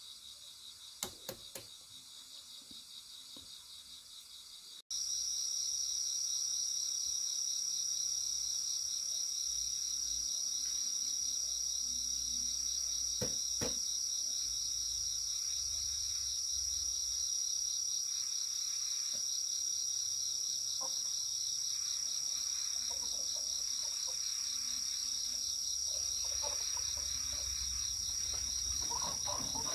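Insect chorus: a steady, high, rapidly pulsing trill. It is faint at first and much louder after an abrupt cut about five seconds in. A few light clicks come about a second in.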